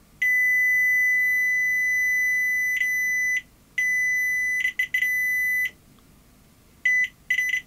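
Multimeter continuity beeper giving a steady high beep as the probes bridge the switch wiring and the connector contacts: first a long beep of about three seconds, then one of about two seconds that stutters, then short broken beeps near the end as probe contact makes and breaks. The tone shows continuity: both sides of the switch reach the connector's contacts.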